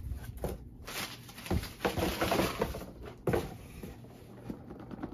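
Cardboard packaging being handled: a cardboard product box slid out of a mailing box and its inner sleeve, rustling and scraping, with a few sharp knocks, the sharpest about three seconds in.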